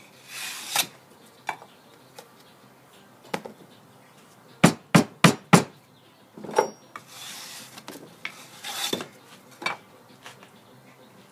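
A metal sand-casting mold flask and hand tools being worked: scattered clinks and knocks, four quick sharp raps near the middle, and two stretches of scraping.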